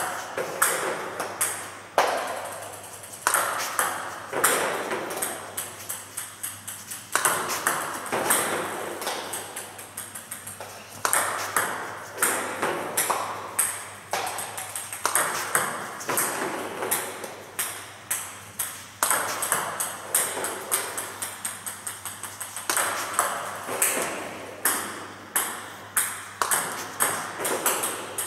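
Table tennis ball repeatedly served with a paddle: sharp clicks of the bat striking the ball and the ball bouncing on the table, in clusters every one to three seconds. These are practice reverse serves with backspin.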